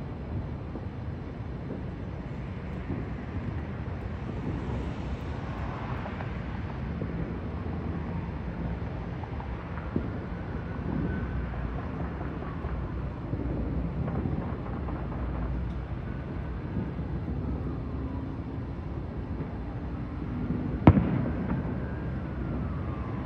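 Distant fireworks over a city: scattered faint pops over a steady low rumble, with one sharp crack about two seconds before the end.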